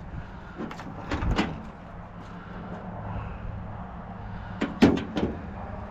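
A vehicle engine idling with a steady low hum, with a few knocks and clunks about a second in and again near the end.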